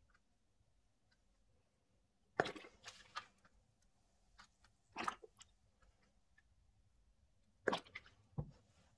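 Plastic squeeze bottle squirting liquid dye onto blocks of gym chalk in a plastic tray: three short clusters of wet squirting and splattering, about two and a half, five and eight seconds in, with small faint clicks between them.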